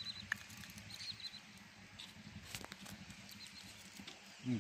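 Faint sounds of a small hooked fish being swung in and handled on the line: a few sharp clicks and taps. Short high chirping calls repeat in the background.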